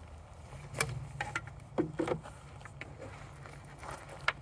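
Handling noise: a few scattered light knocks and scuffs, with a sharp click near the end, as the long wooden alphorn is lowered onto its metal stand.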